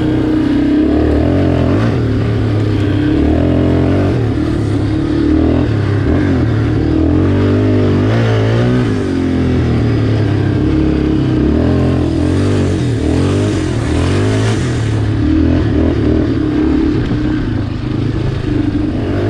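Yamaha Warrior ATV's single-cylinder four-stroke engine running under way, revving up and down repeatedly, its pitch stepping up and falling back as the throttle is worked and gears change.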